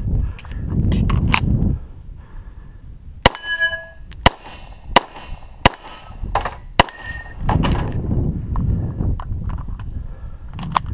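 About five pistol shots fired in quick succession, with steel targets clanging and ringing after the hits. Low rumbling noise comes at the start and again in the second half.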